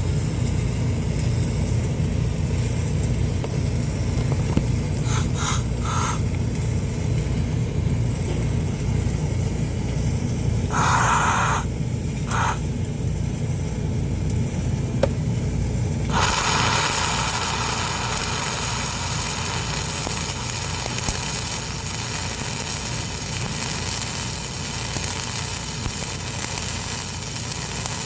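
Electric arc welding: after a couple of short arc bursts, the arc settles into a continuous crackling sizzle about 16 seconds in as a weld is filled. Under it runs a steady low engine hum.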